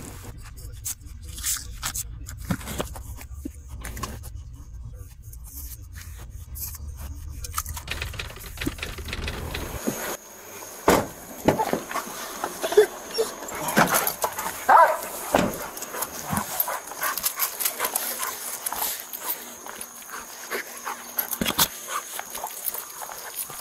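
Police dog barking and whining in short excited calls, mostly in the second half, among clatter and rustle of handling and gear. A low steady rumble stops abruptly about ten seconds in.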